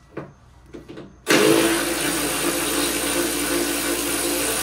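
Cordless electric ratchet running steadily as it backs out a Torx screw from the tailgate, starting about a second in after two light clicks.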